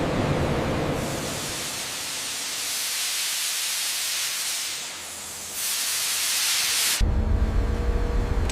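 A steady hiss like a jet of spray or gas, louder and brighter for about a second and a half before it cuts off abruptly about seven seconds in, giving way to a low machine rumble with a steady hum.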